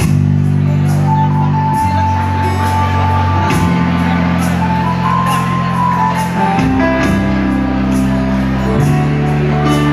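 Pop-ballad accompaniment starting suddenly and loudly, with a bass line changing chord every couple of seconds, a steady instrumental melody line and regular light cymbal ticks; no singing is heard.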